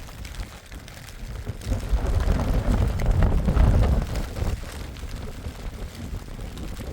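Strong storm wind buffeting the microphone with low rumbling noise, swelling into a louder gust about two seconds in and easing off again.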